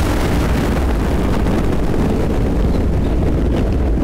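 Thunder rumbling deep and long over the steady hiss of rain, the brighter crackle of the strike fading during the first second or two.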